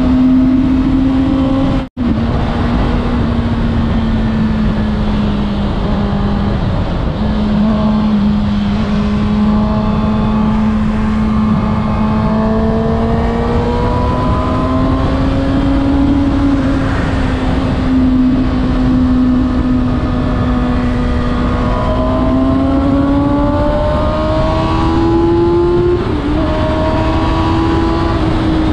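Kawasaki Ninja ZX6R's inline-four engine running at fairly steady riding revs, its note drifting up and down and climbing over the last few seconds, over a constant rush of wind noise. The sound cuts out for a split second about two seconds in.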